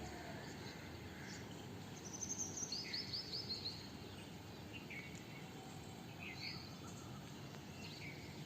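Small birds chirping: a quick run of high, short notes about two seconds in, then scattered chirps, over a steady outdoor hiss.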